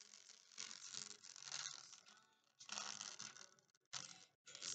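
Faint music from a MacBook Pro A1502's built-in speaker, with a rattling, tearing distortion over it, the sign of the faulty speaker. The sound drops out briefly a few times.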